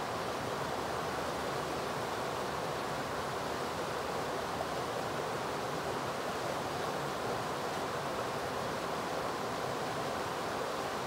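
River water rushing over a shallow rocky riffle: a steady, even rush with no breaks.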